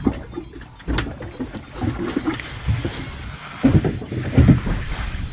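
Large drum fishing reel cranked by hand to wind in line, with irregular knocks and thumps from the reel and rod being handled. There is a sharp click about a second in, and the heaviest thumps come a little past the middle.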